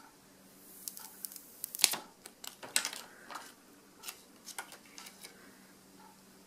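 Thin plastic protective film being peeled off the back of an iPhone 5s: an irregular run of sharp crackles and clicks from about a second in, loudest around two and three seconds in, dying out after five seconds.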